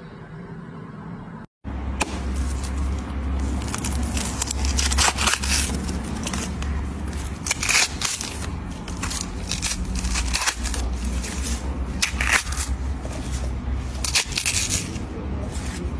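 Watermelon being torn apart by hand, the crisp flesh and rind cracking and crackling irregularly over a steady low rumble.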